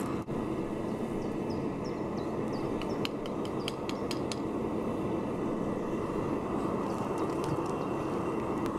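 Fired kiln running with a steady rushing noise during an aluminum melt. A few sharp clicks come about three to four seconds in.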